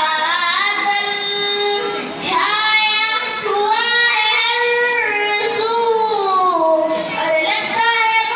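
A single high voice singing a naat, a devotional poem in praise of the Prophet, in long held notes that slide up and down, with brief breaks between phrases.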